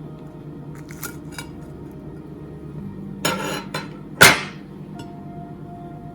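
Crunching as a crispy air-fried breaded fish finger is bitten, among light clinks of a plate, with one sharp clink of crockery about four seconds in.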